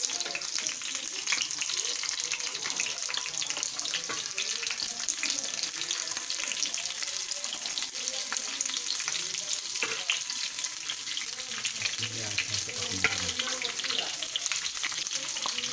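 Stuffed green capsicums frying in hot oil in an aluminium kadhai: a steady sizzling hiss dotted with small crackles.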